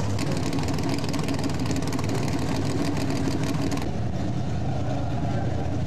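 Dirt late model race car V8 engines running at low speed, a steady low rumble with a rapid crackle over it. About four seconds in the sound changes abruptly and the crackle drops away.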